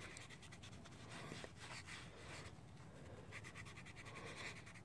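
Faint scratchy scrubbing of a scouring pad rubbed by hand over the face of an aluminium scooter cylinder head, working grime off it in many short strokes.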